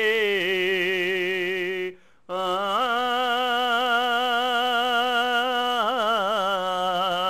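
Male singer holding long sung notes with vibrato: one note that steps down slightly, a short break about two seconds in, then a second long held note.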